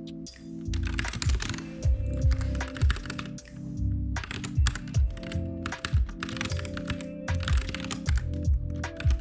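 Computer keyboard typing in quick bursts of key clicks, with short pauses between bursts, over lo-fi background music.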